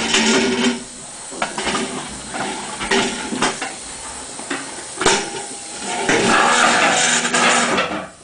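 Rustling and clattering with scattered knocks, a sharper knock about five seconds in, and a louder rough rustling stretch near the end.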